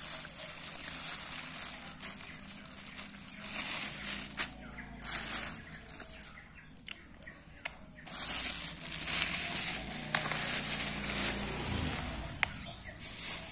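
A white plastic bag and brown paper food wrapping rustling and crinkling in irregular bursts as they are handled, with a few sharp clicks.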